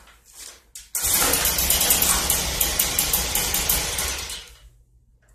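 Stihl BG 65 leaf blower's two-stroke engine catches abruptly about a second in, runs roughly for about three seconds, then dies away: the blower stalling, the fault its carburetor is being set up to cure.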